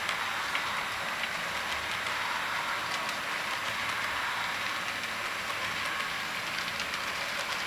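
HO scale model train of double-stack container cars rolling past on the track: a steady rolling noise with a few faint clicks.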